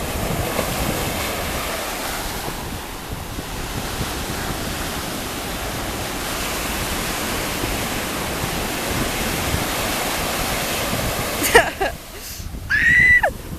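Ocean surf washing up the beach with wind buffeting the microphone, a steady rushing noise. Near the end the sound changes abruptly and a short, high-pitched falling cry is heard.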